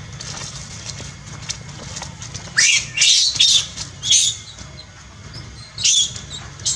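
A young monkey screaming in shrill bursts as it is attacked and chased by another monkey: a cluster of distress cries, the first rising in pitch, about two and a half seconds in, another just after four seconds, and two more near the end.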